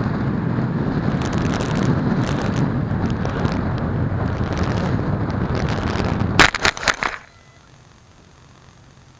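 Steady rushing wind and motor noise of a PopWing RC plane in flight, broken about six and a half seconds in by a quick cluster of sharp cracks, after which the sound drops suddenly to a faint steady hiss.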